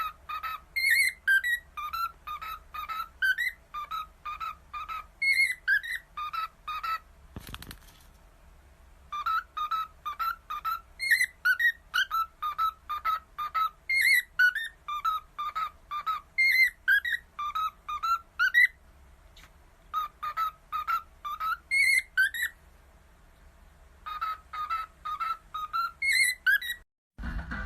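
A pet parrot whistling a tune: short, clear notes several a second, rising and falling in repeated phrases, with a few short pauses.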